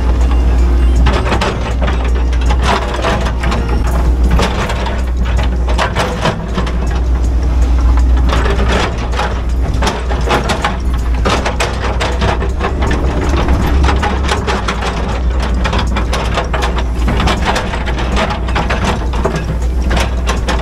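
Hydraulic excavator's diesel engine running steadily under load, heard from the cab. The bucket scrapes and knocks through soil and rock while clearing fallen earth, with frequent clunks and cracks.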